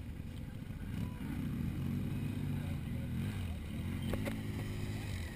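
Off-road vehicle engines running low and steady, ATVs and side-by-sides idling or creeping along at low speed, with faint voices among them.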